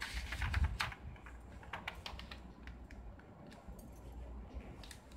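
Paper pages being turned and handled: a crisp rustle in the first second, then a few scattered light clicks and crackles.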